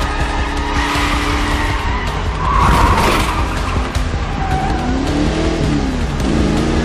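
Ford Mustang's engine revving hard with tyres squealing as the car slides through a turn, the squeal loudest about two and a half seconds in. Later the engine note rises and falls twice as it accelerates.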